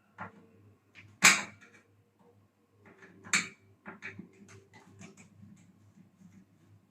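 Screwdriver and metal parts clicking and knocking while the microwave's high-voltage capacitor mounting screw is undone: a loud knock about a second in, another shortly after the middle, then a quick run of light ticks.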